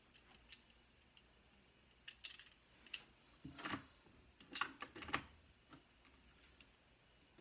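Light clicks and taps of small hard parts as a red dot sight's mount is handled and fitted onto an airsoft rifle's top rail, coming in short clusters with pauses between.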